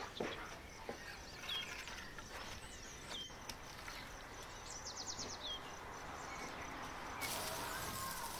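Outdoor ambience with small birds chirping a few times, short falling chirps and one quick trill, over a faint background hiss. A few clicks sound in the first second, and a louder steady hiss comes in abruptly near the end.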